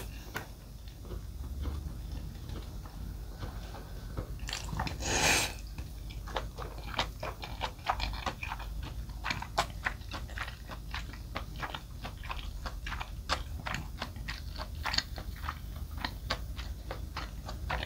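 Close-miked chewing of jjolmyeon noodles with shredded raw vegetables, with crisp crunching clicks several times a second. A short louder burst of noise comes about five seconds in, before the chewing picks up.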